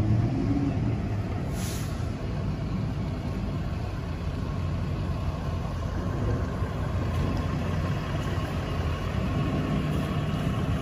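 Emergency vehicle engines idling with a steady low rumble, and a short hiss about two seconds in.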